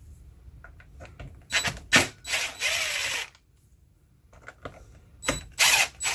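Cordless drill/driver with a T20 Torx bit backing screws out of a DeWalt orbital sander's housing, in short runs: two around two seconds in and another near the end, with small clicks between them.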